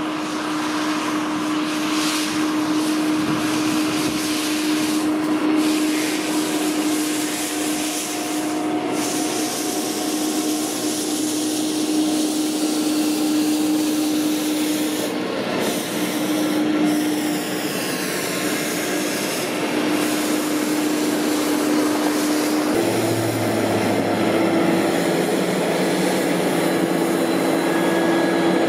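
Holder sidewalk tractor running with its front rotary broom sweeping grit off the sidewalk. The engine holds a steady tone over the hiss and scrape of the brush.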